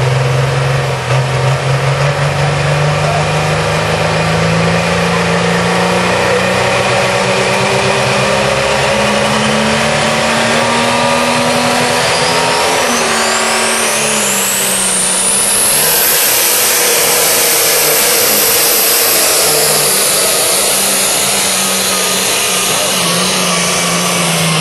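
Diesel pickup truck engine revving up under load, its pitch rising slowly, then a high whine climbing steeply about halfway through as the turbo spools. It then runs flat out as the truck drags the pulling sled.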